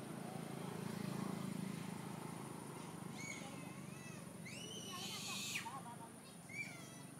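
Several short high-pitched animal calls, rising and falling in pitch, begin about three seconds in, with a louder rising squeal just after five seconds. A low steady hum runs underneath.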